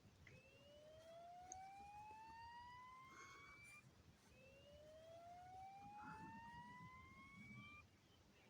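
Fire alarm speaker strobe's speaker sounding the slow whoop evacuation tone that opens a Fire-Lite voice evac message: two faint rising sweeps, each about three and a half seconds long, with a short break between them.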